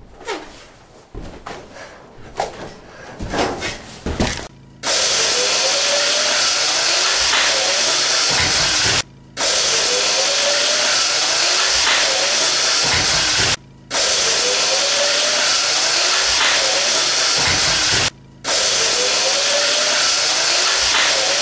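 The giant walking robot's electric drive motor running under load with its leg mechanism working: a loud, steady, hissing whir with a faint recurring squeal. It starts after a few seconds of scattered knocks and cuts out abruptly for a moment about every four and a half seconds.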